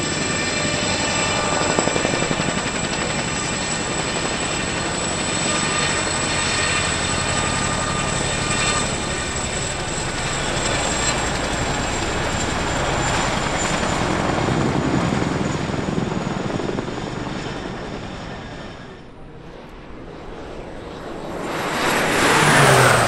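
CH-47 Chinook tandem-rotor helicopter flying slowly with an underslung load: a steady rotor beat under a high turbine whine. Near the end it gives way to a low, fast pass by a single-engine Air Tractor turboprop, which swells to the loudest point and drops in pitch as it goes by.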